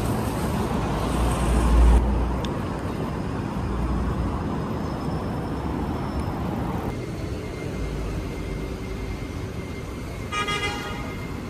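Road traffic noise with wind rumbling on the microphone, and a brief horn-like toot about ten seconds in.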